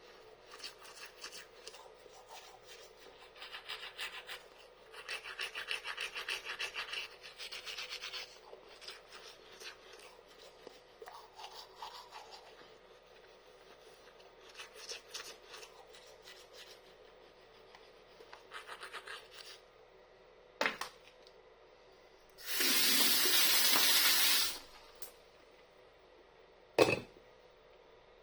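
Toothbrush scrubbing teeth in quick back-and-forth strokes, in spells with short pauses between. Later come a couple of brief sharp sounds and a loud, steady two-second rush of noise.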